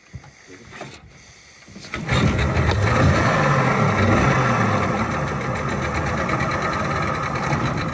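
Suzuki 30 hp three-cylinder outboard motor starting about two seconds in, revving briefly, then settling into a steady run.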